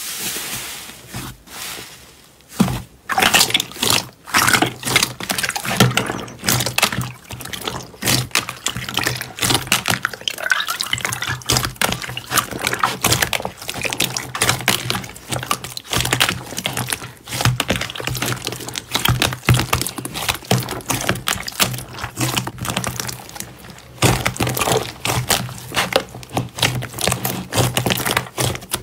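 Hands squeezing and kneading wet slime in a bowl of water: a dense, irregular run of short pops and clicks.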